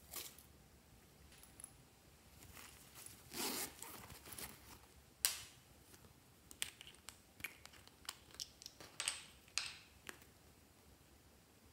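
Quiet handling of small plastic bottles and containers: scattered light clicks, taps and brief rustles. There is a short scraping rustle about a third of the way in, a sharper click soon after, and a run of small clicks near the end as the tips of two glitter glue squeeze bottles are worked open.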